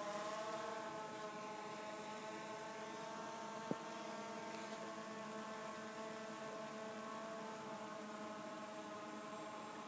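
Skydio 2 quadcopter's propellers humming steadily in flight, a drone of several close, steady tones. A single short click about four seconds in.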